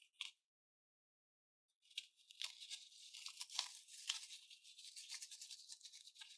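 Small foam beads and slime squeezed out of a cut rubber balloon into a glass dish: a quiet, crackly squishing rustle of many tiny pops, starting about two seconds in.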